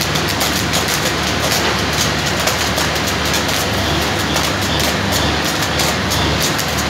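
Diesel engine-generator of a mobile flash butt rail welding plant running steadily with a low hum, a fine crackle over it.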